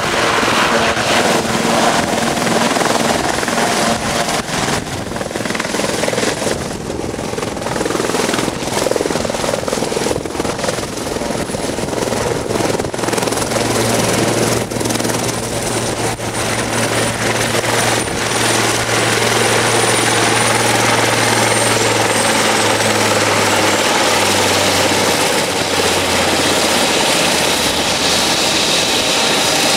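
Sikorsky S-76C+ helicopter hovering low and setting down, then running on the pad with its main rotor turning. A thin, steady high turbine whine sits over the loud rotor and engine noise, and a steady low hum joins about halfway through.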